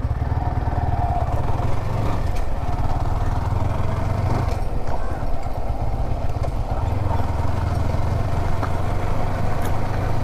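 Yamaha R15 V4's single-cylinder engine running steadily as the motorcycle rides along.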